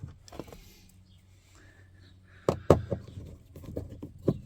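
Plastic interior door trim being worked loose by hand: quiet handling at first, then two sharp loud clicks close together about halfway through, followed by a few lighter clicks and knocks.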